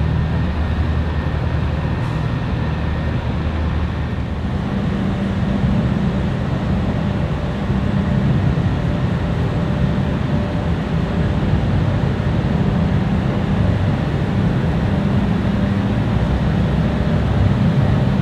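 Low, steady drone of marine diesel engines from a tugboat working a small cargo ship along the river. The engine note shifts about four seconds in.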